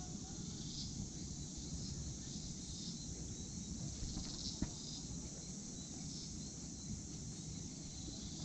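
Steady, high-pitched chorus of insects over a low rumble, with one sharp click a little past halfway.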